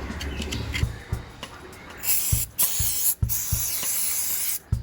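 Spray hissing in three bursts in the second half, the last the longest, after a few faint knocks.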